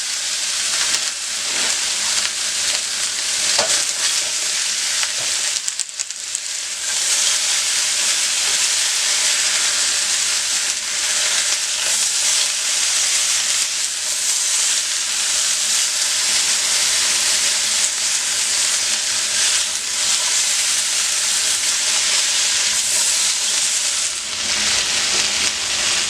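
Vegetables with garlic and onions frying in hot oil: a steady, loud sizzle that briefly drops about six seconds in, with a few faint clicks.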